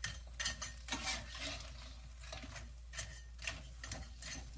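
A metal utensil clinking and scraping in a wok as blue crabs are stirred, scattered light knocks at an uneven pace.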